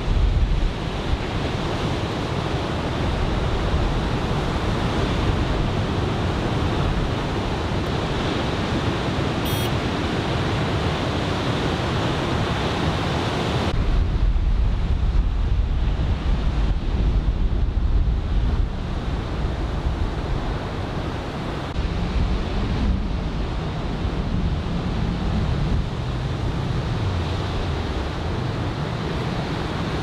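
Ocean surf from an arriving typhoon swell washing and breaking steadily on the beach, with wind buffeting the microphone. About 14 s in, the low wind rumble on the microphone strengthens while the hiss of the surf drops back.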